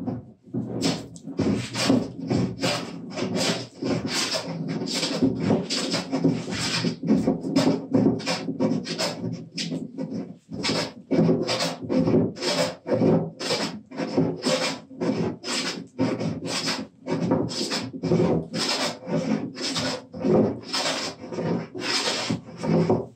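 Wooden-bodied jointer plane cutting across a California redwood workbench top, a rasping scrape of the iron taking shavings, repeated in short rapid strokes at about two a second, as the benchtop is being flattened.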